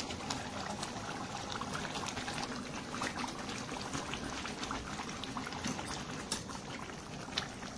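Curry gravy simmering in a kadhai, bubbling with a steady scatter of small pops.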